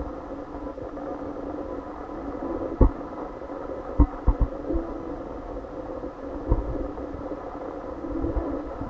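A steady low hum with a few short dull thumps, about three, four and six and a half seconds in.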